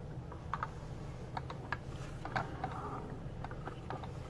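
Irregular light clicks and taps from fingers handling a 1:18 scale diecast model car, over a low steady hum.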